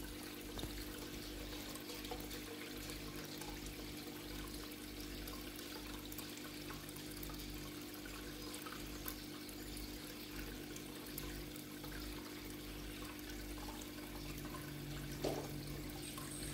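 Water trickling and pouring steadily into an indoor koi pond from its filter return, over a low steady hum.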